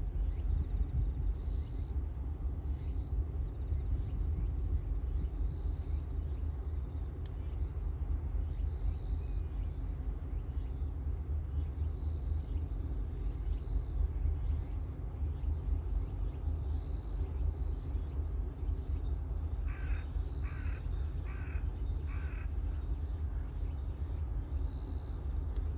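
A crow caws four times in quick succession near the end, over a continuous high, pulsing insect chirr and a steady low rumble.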